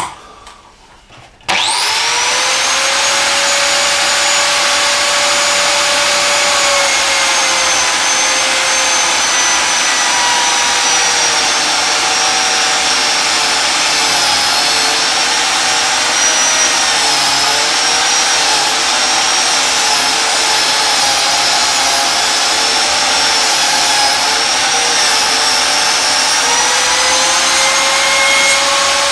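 Einhell TC-BJ 900 biscuit joiner with its 900-watt motor starting about one and a half seconds in, its whine rising quickly, then running steadily while it mills a long groove along a board. Its pitch wavers slightly under the cut, and the dust extractor on its hose runs along with it.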